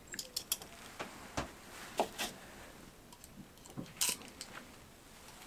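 Light, irregular clicks and taps of a small screw and tool on metal pistol parts as the nozzle block is screwed into an AAP-01 airsoft pistol, with sharper clicks about two and four seconds in.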